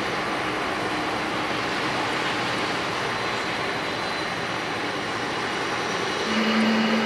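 Jet engines of a four-engined Boeing 747-400F freighter, a steady rushing noise; near the end a low tone comes in and rises slightly in pitch.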